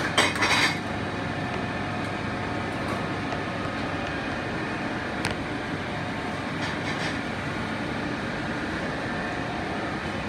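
Steady rumbling background noise of a commercial kitchen, with a short clatter of a metal ladle against a steel bain-marie tray right at the start and a single sharp click about five seconds in.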